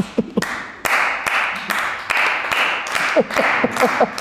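A few people clapping in steady applause, with a man laughing in short ha-ha bursts at the start and again near the end.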